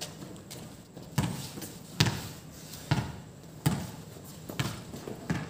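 A basketball being dribbled on a hard court, bouncing about six times at a steady pace of a little under one bounce a second. The last couple of bounces are softer.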